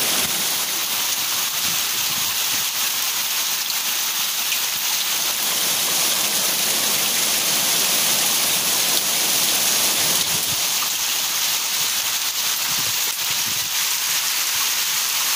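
Hailstorm of small hailstones mixed with rain, falling steadily as an even hiss.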